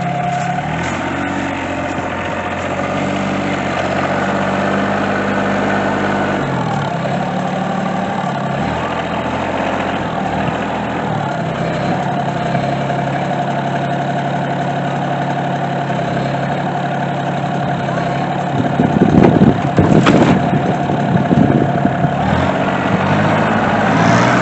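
Kioti RK24 subcompact tractor's diesel engine running steadily under hydraulic work, with a steady whine over it. Near the end come several loud, irregular knocks and crashes.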